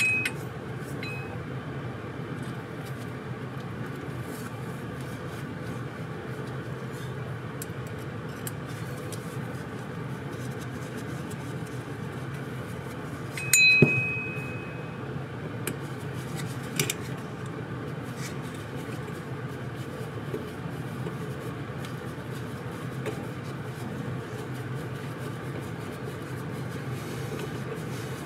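Small metal clicks and clinks of a carburetor body and a screwdriver being handled, with one louder metallic clink about halfway through that rings briefly, over a steady low hum.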